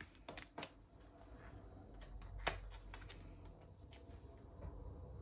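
Pocket-size oracle cards being handled and separated one from another, giving a scatter of faint clicks and snaps, the sharpest about two and a half seconds in. The cards are sticky and cling together as they are pulled apart.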